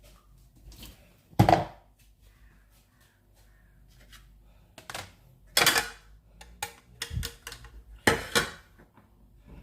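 Kitchenware being handled: sharp knocks and clicks of dishes and utensils, a loud knock about a second and a half in, then a run of clicks and knocks in the second half.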